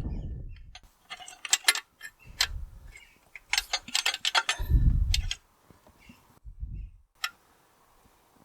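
Metal pipework and tools clicking and clinking against the cast-iron casing of a David Brown 990 tractor axle as a pipe is worked loose. Several dull knocks come in among the clicks, and it goes quiet near the end.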